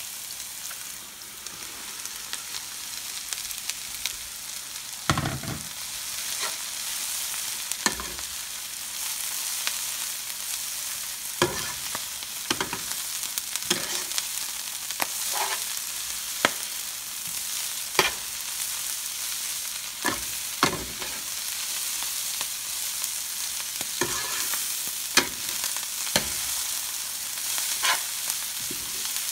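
Chopped collard greens and onions sizzling in hot olive oil in a skillet, with a steady hiss. A metal slotted spoon clinks and scrapes against the pan now and then as the greens are turned.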